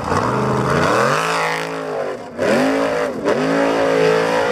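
Formula Offroad buggy's engine revving hard under load as it climbs a steep dirt hill. The revs drop and surge again several times as the throttle is worked.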